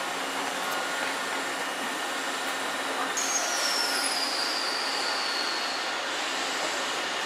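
Electric train running on rails, with a steady noise of wheels and motion. About three seconds in, a high wheel squeal sets in and slides slowly down in pitch for about three seconds.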